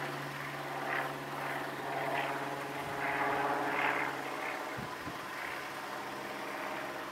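Safetran mechanical railroad crossing bell ringing with rapid, continuous strikes while the warning lights flash. A low steady hum under it stops about four and a half seconds in.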